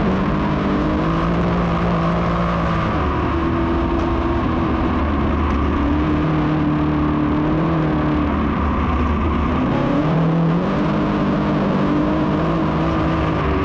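A field of dirt modified race cars running laps, several engines overlapping and rising and falling in pitch as they accelerate and lift through the turns.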